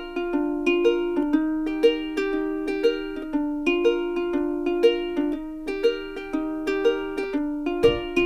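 Background music: a light, bouncy tune of plucked ukulele-like notes in a steady rhythm, with a low bass layer joining near the end.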